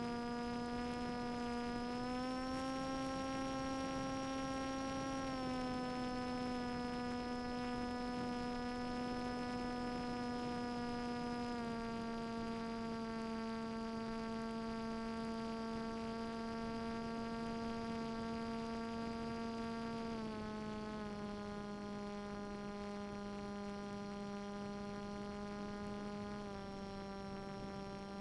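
Electric brushless outrunner motor and APC propeller of an MSComposit Swift II flying wing, with a steady, pitched whine. The pitch rises about two seconds in, then steps down several times over the rest of the flight: throttle changes.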